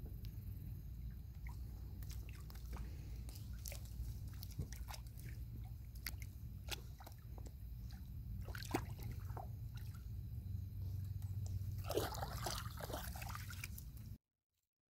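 Bluegill sucking and nipping at floating bread on the pond surface: small scattered pops, drips and slurps over a steady low rumble, with a louder splashy flurry about twelve seconds in. The sound cuts off abruptly near the end.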